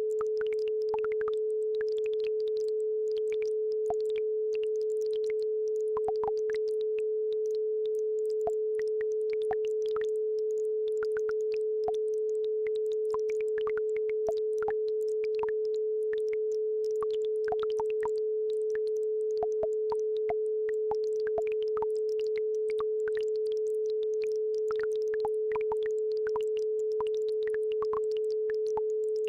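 A steady pure tone at about 432 Hz, the loudest thing throughout, over the faint irregular trickle and plinks of a babbling brook.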